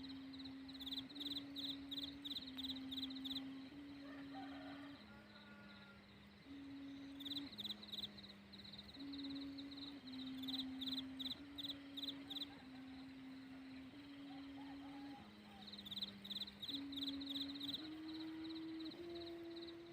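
Thai kite hummer (sanu) of rattan, wailing in the wind: a steady low hum that holds one pitch for a second or so, then steps up or down to another, over and over. Groups of rapid, pulsing high chirps come and go every few seconds alongside it.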